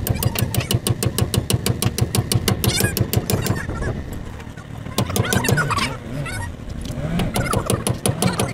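Fast, even metal clicking or tapping from hand tools on a truck's front wheel hub, about eight strikes a second, stopping about three and a half seconds in. Later come a few short wavering calls.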